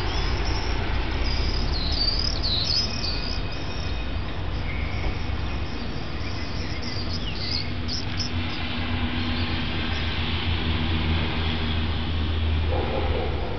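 Birds chirping a few times over a steady low rumble that grows stronger in the second half; near the end a humming drone sets in.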